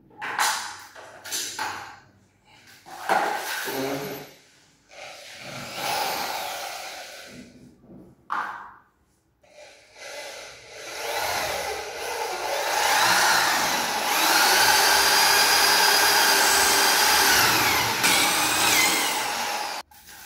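Power drill boring a hole into a wooden door for the lock: several short bursts, then a long run of about eight seconds with the motor whine rising and falling in pitch, stopping suddenly near the end.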